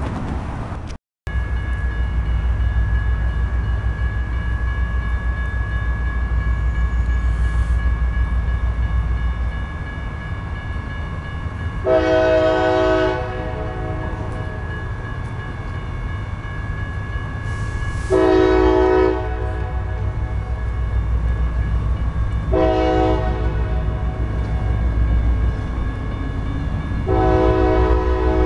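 CSX freight locomotive's air horn sounding four chords over a steady low rumble: two longer blasts, a short one, then a long one. This is the standard long-long-short-long warning pattern for a grade crossing.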